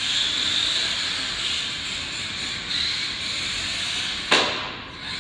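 Small electric RC rally car (Dromida 1/18) running, its motor and gears giving a high, hissy whine that shifts a little in pitch with the throttle. A sharp knock about four seconds in is the loudest sound.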